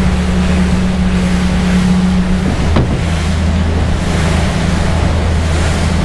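Mercury outboard engines of a motor yacht running steadily underway, a low even drone over the rush of water past the hull and wind noise. About three seconds in there is a short knock and the engine tone briefly dips.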